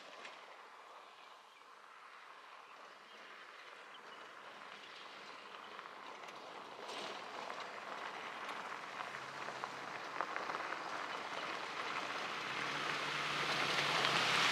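An SUV driving up a gravel track and passing close: its tyres crunch and rumble on the loose gravel over a low engine hum, growing steadily louder as it approaches and loudest near the end.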